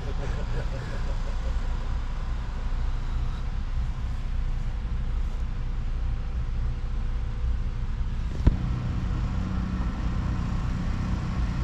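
An engine running steadily with a low, even rumble. There is a single sharp click about eight and a half seconds in.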